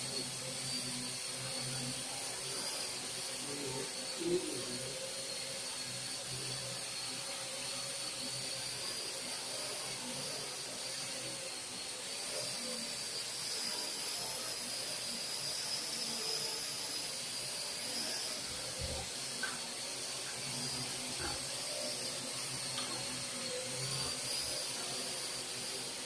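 Parrot AR.Drone 2.0 quadcopter's four electric motors and propellers whirring steadily as it hovers and shifts position, with a high whine that wavers slightly in pitch.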